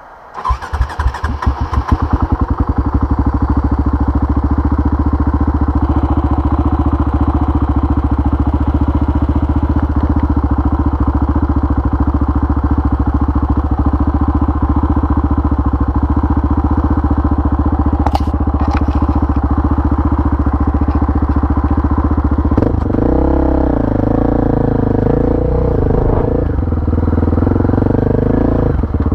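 KTM 525 XC quad's single-cylinder four-stroke engine starting and settling into a steady idle. Near the end it revs up and down as the quad pulls away.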